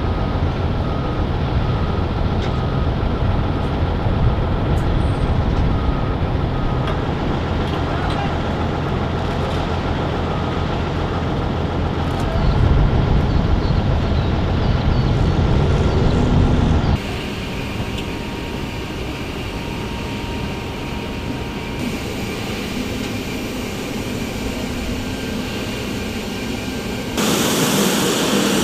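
MV-22B Osprey tiltrotor engines running, a steady low rumble with a faint whine over it in the first few seconds. The sound changes abruptly several times: louder about twelve seconds in, quieter from about seventeen seconds, and brighter and hissier near the end.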